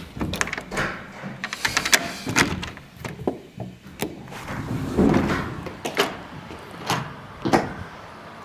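A balcony door's metal lever handle turned and its latch clicking, then the door swung open, giving a string of clicks, knocks and low rumbles. A few louder knocks follow near the end.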